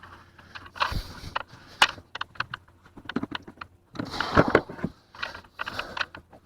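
Irregular clicks and short rattles of hands working with fishing tackle while unhooking caught catfish.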